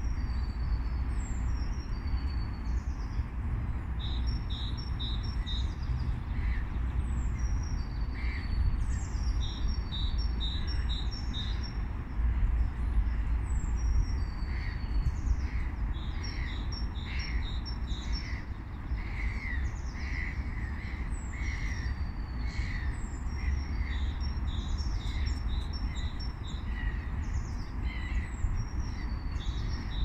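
Spring birdsong: several small birds chirping and singing in quick, repeated notes and short trills, over a steady low rumble.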